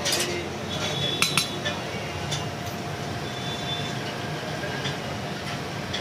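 Steel spatula clinking and scraping on an iron dosa griddle while sauce is spread over the dosa, with steel utensils and plates clinking. Sharp clinks come at the start and again about a second in, over steady background noise.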